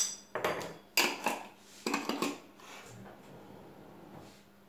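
A small metal spoon clinks against a glass herb jar, then a few short clattering knocks follow over the next two seconds as the jar is handled and put away into a kitchen drawer.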